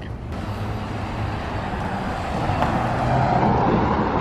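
Outdoor traffic noise: a steady rumble and hiss of road noise that swells a little about three seconds in.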